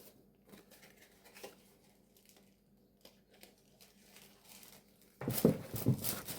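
Faint handling rustles and small clicks of packaging being moved on a table, then, about five seconds in, a sudden louder stretch of crinkling and rustling.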